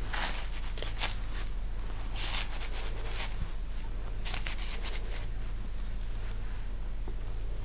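A steady low electrical hum with a scattering of short, soft rustling or breathy noises, most of them in the first five seconds.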